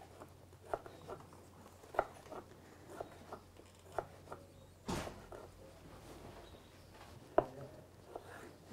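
Light, irregular knocks and clicks of a knife cutting pear tomatoes by hand and tapping against a dish, about one or two a second, with a brief rustle about halfway through.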